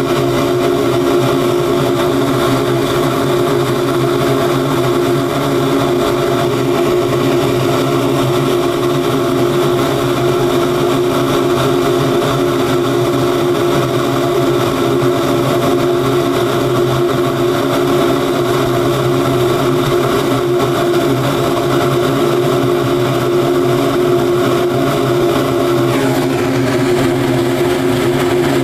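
Cremation furnace's burner and combustion-air blower running, a steady loud drone with a constant hum over the rush of the flames.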